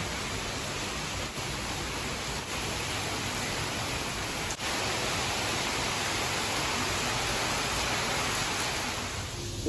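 Heavy rain falling, a steady hiss with a brief break about four and a half seconds in.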